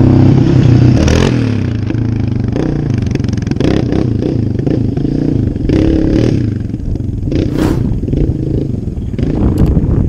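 Yamaha sport quads (YFZ450R and Raptor 700R, both single-cylinder) being ridden, their engines revving up and down over and over as the riders throttle on and off.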